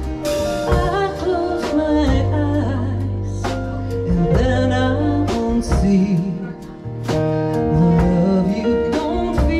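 A woman singing a slow song live, her voice wavering with vibrato, over instrumental accompaniment with struck or plucked chords and held bass notes.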